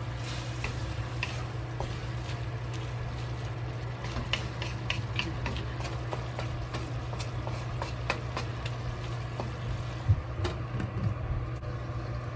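Pork and fennel cooking in a pan on the stove, with scattered light pops and clicks over a steady low hum. There is a louder knock about ten seconds in.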